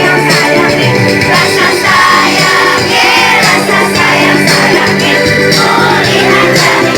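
A children's choir singing over loud accompanying music with a steady beat.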